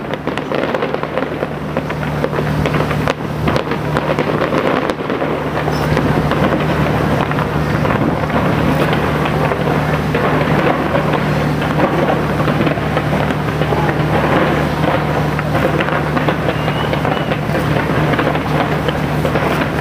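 Fireworks display: a dense, continuous crackling of bursting shells, with a few sharper bangs in the first five seconds, over a steady low hum.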